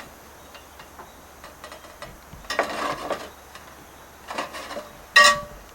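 Copper step flashing being cut with tin snips: a few short rasping cuts and metal clicks, then a sharp ringing clang of the sheet metal near the end.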